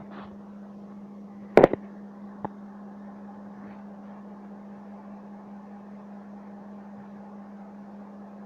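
A steady low hum with background hiss, broken by a loud sharp knock (two or three quick strokes) about a second and a half in and a single fainter click about a second later.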